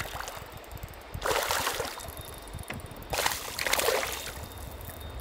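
A hooked smallmouth bass thrashing at the water's surface: two bursts of splashing, about a second in and again about three seconds in.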